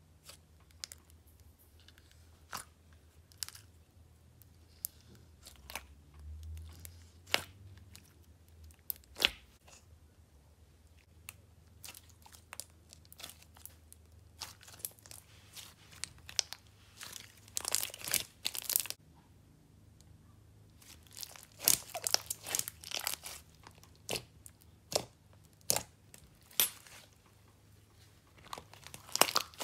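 Clear slime being worked by hand, squeezed, folded and stretched as soft clay is mixed into it, giving sticky pops and crackles. They come scattered at first and crowd into dense crackling runs past the middle and again near the end.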